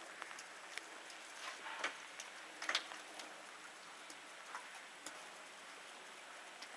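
Small glass bottles clicking and clinking against each other as they are sorted in a foam-lined case: scattered light ticks, the loudest a little under two seconds in and again just under three seconds in, over a faint steady hiss.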